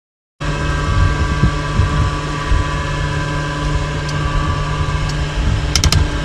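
Steady machine hum and whine inside an Antonov An-26 cockpit on the ground, several steady tones held over a low rumble. It cuts in abruptly just after the start, and three quick clicks come near the end.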